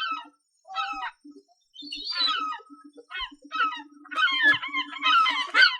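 Seagulls calling: a string of short, pitch-bending calls, spaced apart at first and then coming thick and overlapping from about four seconds in as several birds call at once.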